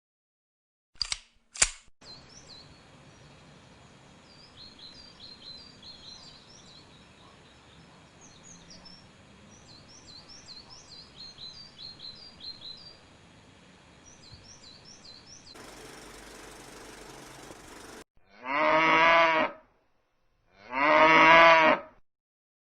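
A string of animal sound effects: two sharp clicks, then small birds chirping in quick high notes over faint background noise, a short stretch of hiss, and finally a cow mooing twice in long, loud calls.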